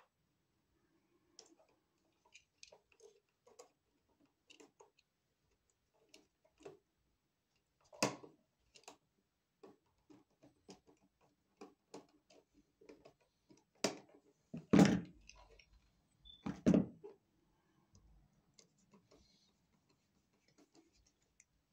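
Small clicks and scrapes of hand tools and bare copper wire as a ground wire is looped around a receptacle's green grounding screw, with a few louder knocks about 8 seconds in and again around 14 to 17 seconds.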